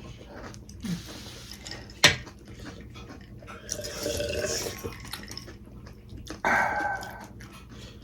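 Close-up mouth sounds of eating pani puri: wet slurping of the spiced water and chewing, with a sharp click about two seconds in and louder slurps around four and six and a half seconds.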